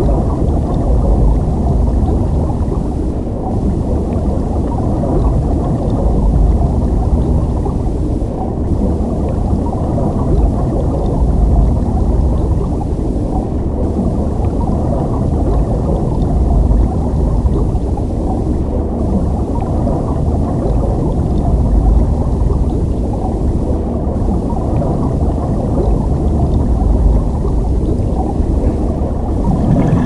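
Underwater ambience: a steady, muffled low rumble and gurgle of water, with a brief dip about every five seconds.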